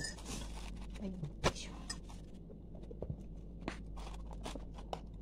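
Scattered light clicks and taps of fried chicken, paper and tableware being handled on a table, over a steady low hum.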